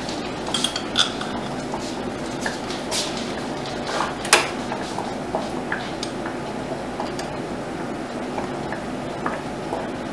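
Metal spoon clinking and scraping against glass mason jars as relish is spooned in, with scattered light taps and the loudest clink about four seconds in, over a steady background hum.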